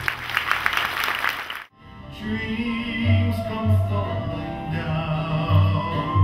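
Stage music: a woman singing with vibrato over plucked-string accompaniment and a deep bass line. About two seconds in, the sound cuts out abruptly and a new song starts.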